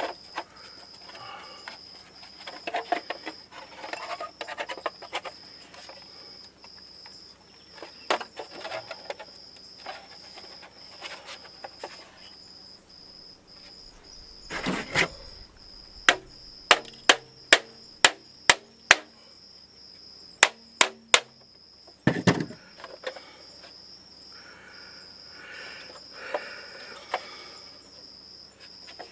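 Steel parts being handled and fitted together at a workbench: scattered clinks and rattles, then about halfway a quick run of sharp metal taps, a few a second with a faint ring, followed by three more taps and a thump. A steady high insect trill runs underneath.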